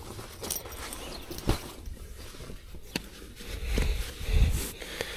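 Rustling and handling noise of a sleeping bag being rolled up and packed: scattered soft clicks and rustles, with a couple of low dull bumps about four seconds in.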